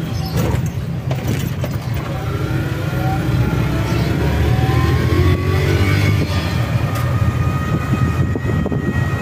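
Electric e-bike trike driving along a street: a steady low rumble of road and wind, with a faint motor whine that rises in pitch as it picks up speed midway.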